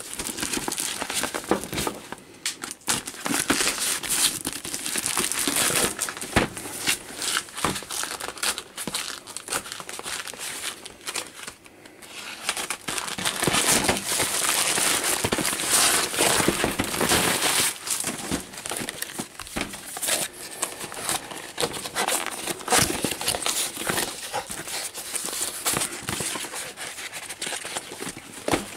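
Plastic parcel packaging being torn open and crinkled by hand: a taped plastic courier bag, then a thin plastic bag pulled off a box, with a busy run of crackles and rustles that eases for a moment, then grows louder again.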